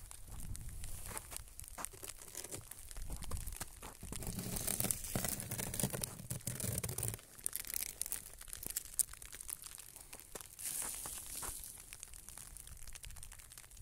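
Freezing rain falling on ice-glazed surfaces: a dense hiss made of many tiny ticks. A low rumble runs underneath through the first half.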